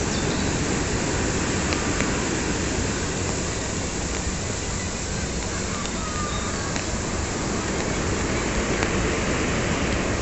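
Steady rushing outdoor noise of wind buffeting the microphone, over the distant rush of heavy surf breaking along the shore.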